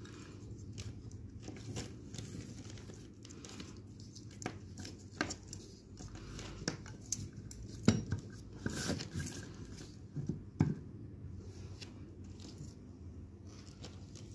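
Handling noises: plastic packaging crinkling and scattered small clicks as a small inverter and its battery leads with metal alligator clips are picked up and moved, with two sharper knocks in the second half.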